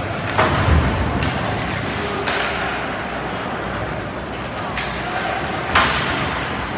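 Ice hockey game in play: a steady din of rink noise and distant voices, cut by four sharp knocks of sticks and puck, one about half a second in and the loudest near the end.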